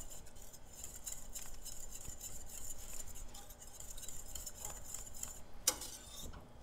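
Wire whisk stirring a thick flour-and-broth roux sauce in a stainless steel saucepan, its wires making quick light ticks and scrapes against the pan, with one sharper knock near the end.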